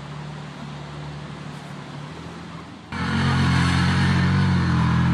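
Off-road 4x4's engine running at a steady note. About three seconds in, the sound jumps suddenly to a much louder, steady engine sound that holds to the end.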